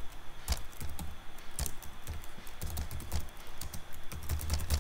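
Computer keyboard being typed on, the keystrokes clicking in quick, irregular runs.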